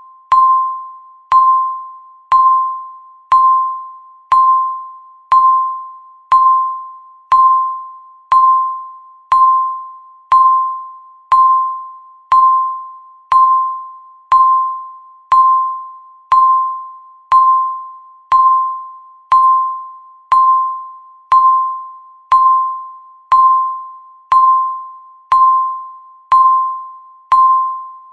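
Countdown timer beep: the same single high tone struck once every second, each note starting sharply and fading away before the next.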